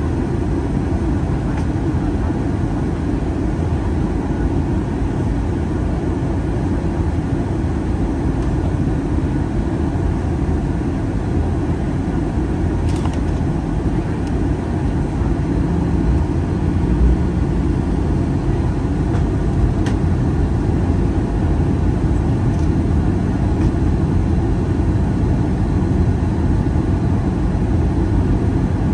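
Steady low roar inside an airliner's passenger cabin, jet engine and airflow noise heard at a window seat, while the plane descends toward landing.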